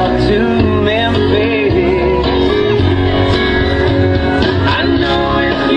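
Country song playing, with singing over guitar and a steady bass beat.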